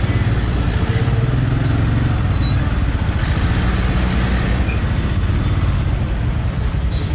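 Idling engines in stopped traffic, heard as a steady low rumble under an even haze of street noise.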